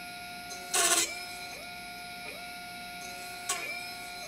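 Wegstr desktop CNC mill's spindle whining steadily while it drills holes in a copper-clad circuit board. The pitch dips briefly and climbs back about every two-thirds of a second, once per hole. There is a brief loud noisy burst about a second in and a smaller one near the end.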